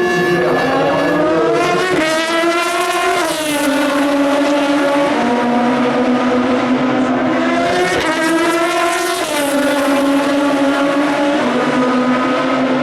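Race car engines accelerating at full throttle through upshifts: the engine note climbs, drops sharply at each gear change, then climbs again. This happens several times, at about 2, 3.5, 5, 9 and 11.5 seconds in.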